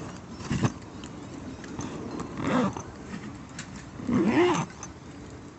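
A dog whining in three short rising-and-falling calls, the last the loudest and longest, with faint crackles from a campfire between them.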